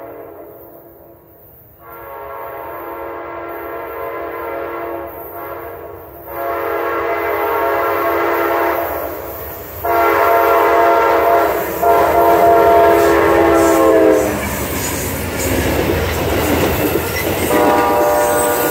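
An Amtrak passenger train approaches sounding its diesel locomotive's horn in several long blasts that grow louder as it nears, the last dipping in pitch as the engine goes by. After the horn stops, the locomotive and passenger cars pass close in a loud rumble with the clickety-clack of wheels on rail joints, and a ringing wheel squeal sets in near the end.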